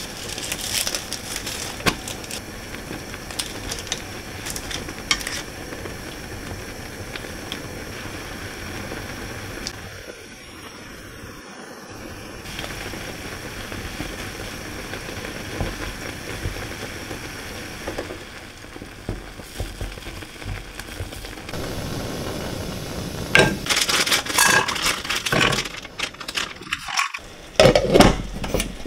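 Food sizzling in a frying pan while utensils stir and clink against the pan and dishes, with louder clattering near the end.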